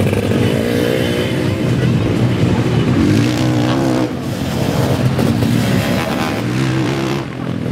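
Zabel 750 cc two-stroke engine of a sidecar motocross outfit being revved hard under acceleration, roaring. Its pitch climbs twice, each time dropping back at a gear change.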